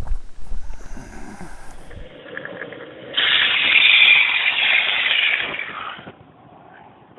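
Longboard wheels sliding sideways across wet tarmac in a hands-down slide: a loud hiss lasting about three seconds that stops suddenly. Before it, wind buffeting and rumble from riding downhill.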